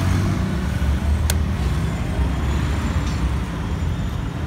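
KTM 390 Duke's single-cylinder engine idling steadily, with one sharp click about a second in.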